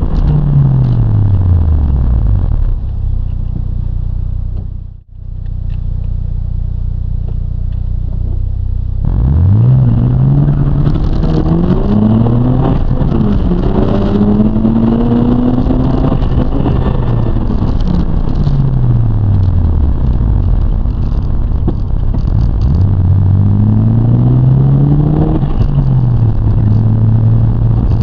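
Mazda RX-7 FD3S's twin-turbo rotary engine heard from inside the cabin. The revs fall as the car slows, then settle into a steady low idle with a brief dropout in the middle. About a third of the way in it accelerates hard through the gears with rising revs, lifts off with a long falling note past the middle, pulls again, and settles to a steady note near the end.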